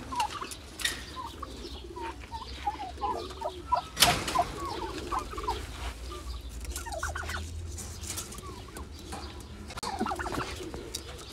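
Domestic turkeys calling: a long string of short, high calls, with one sharp knock about four seconds in.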